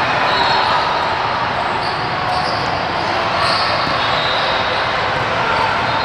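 Steady, dense din of a large hall with several basketball games going at once: basketballs bouncing and many voices blurring together.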